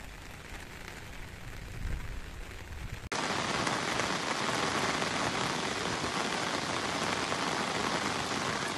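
Heavy rain falling on a wide pool of water: a dense, steady hiss. For the first three seconds the rain is quieter under a low rumble, then it cuts suddenly to louder, closer rain on the water surface.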